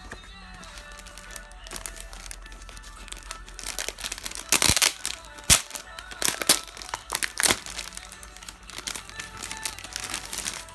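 Clear plastic wrapping crinkling and crackling as it is handled, in a burst of loud crackles from about four to eight seconds in and softer ones near the end, over quiet background music.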